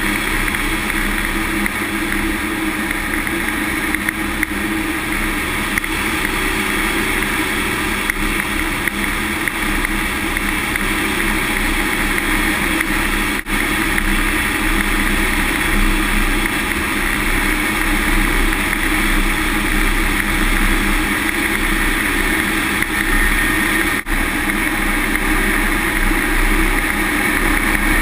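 Steady cockpit noise of a Panavia Tornado jet in flight: engine and rushing air heard inside the rear cockpit. It dips for an instant twice, about halfway through and again near the end.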